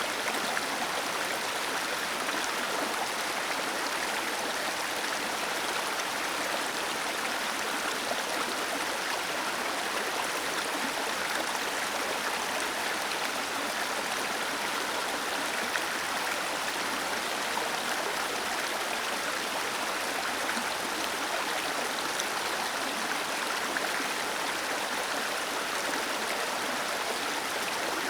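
Small waterfall cascading over rocks into a stream: a steady, unbroken rush of splashing water.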